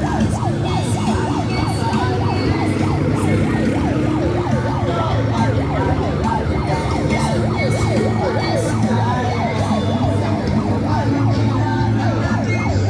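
Several sirens sounding at once in rapid up-and-down sweeps that overlap one another, over the steady running of motorcycle and tricycle engines.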